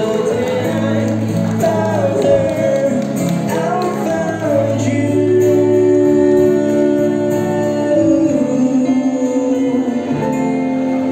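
Music with a singing voice: a sustained melody over a steady accompaniment.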